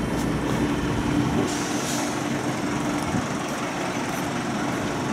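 Budapest trams standing at a stop. A steady low hum stops about three seconds in, and a short hiss comes a little under two seconds in, over street noise.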